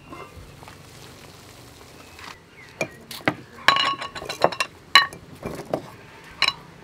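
Small square glass seasoning jars clinking against one another as they are handled and set down on a wooden table. The clinks come as a quick run of sharp, ringing chinks in the second half.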